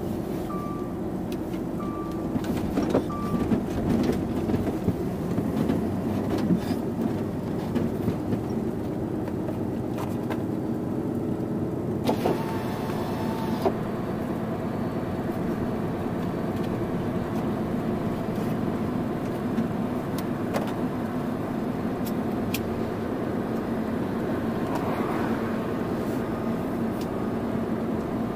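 A Volvo FH12 500 truck's 12-litre six-cylinder diesel running steadily while driving, heard from the cab, with scattered knocks and rattles in the first half and a short hiss about twelve seconds in.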